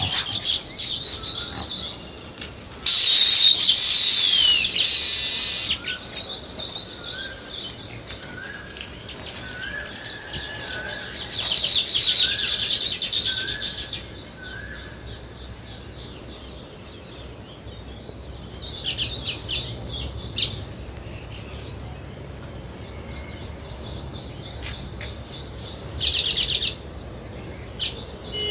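A flock of small songbirds chirping and chattering, swelling into dense loud bouts three times. Under the chatter, a separate bird gives a series of short rising whistled notes, about one a second.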